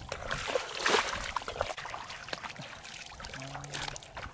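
Footsteps splashing and squelching through shallow water and mud in a flooded rice paddy, irregular, with the loudest splash about a second in.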